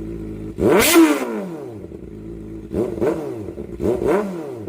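Kawasaki Ninja ZX-4RR inline-four with an Austin Racing exhaust, idling and blipped three times. Each rev rises sharply and falls straight back to idle: one about a second in, then two quick ones near the end.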